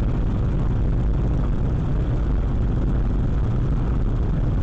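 Steady low rumble of a car's engine and road noise heard from inside the cabin through a dashcam microphone.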